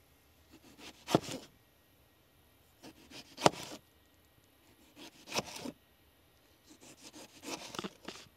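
Kitchen knife slicing through a tomato on a cutting board: four slices about two seconds apart, each a short sawing stroke through the flesh that ends in a knock of the blade on the board.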